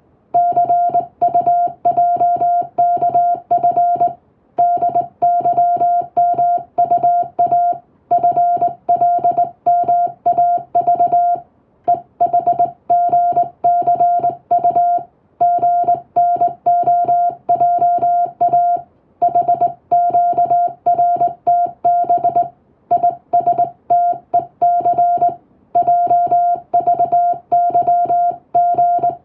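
Morse code sidetone, a single steady high tone keyed rapidly on and off in dots and dashes by a telegraph key, sending English text. Short pauses fall between the groups every few seconds.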